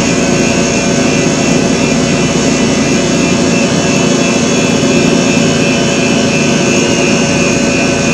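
Steady, loud hiss and hum with several faint steady tones, unchanging throughout.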